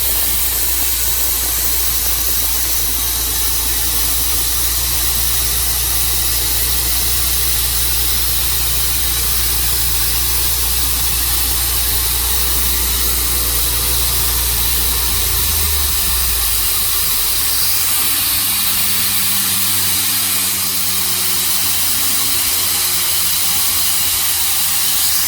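Portable sawmill engine running under a loud, steady hiss. About fifteen seconds in, the low engine note shifts down and settles at a different pitch.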